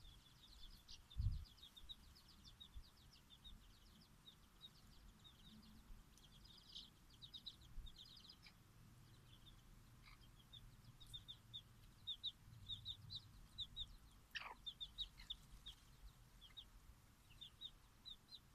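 Bantam chicks peeping softly, in quick runs of short high peeps, with one longer peep sliding downward about fourteen seconds in. A single low thump comes about a second in.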